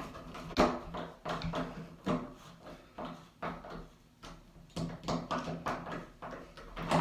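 Irregular small clicks and knocks of a screwdriver turning the mounting bolt of a doorknob handle set, the metal handle hardware rattling against the door.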